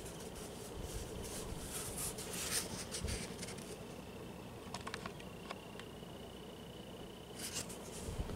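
Cast iron spinner ceiling fan running steadily at medium-high speed, a low whir of the motor and blades moving air with a few brief gusty swishes. A faint steady hum from its speed controller sits under it, with a thin high whine coming in about five seconds in.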